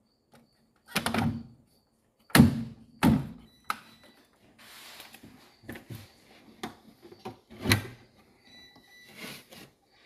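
Knocks and clunks of plastic and sheet-metal parts as a dishwasher's door switch and front door panel are handled and pressed into place. There are several separate knocks, the loudest about two and a half seconds in and near eight seconds, with fainter rubbing and scraping between them.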